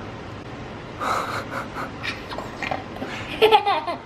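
A toddler laughing, starting about a second in with short, breathy bursts and ending in a brief higher-pitched giggle near the end.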